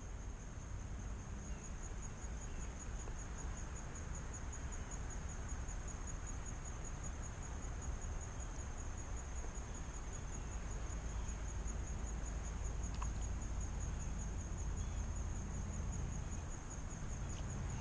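Insects trilling steadily on one high, finely pulsing note, over a low rumble of wind on the microphone.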